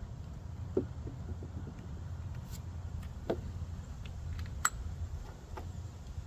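Metal air-gun revolvers and a small tool being handled on a wooden bench: four scattered clicks and knocks, the sharpest about two-thirds of the way through, over a steady low rumble.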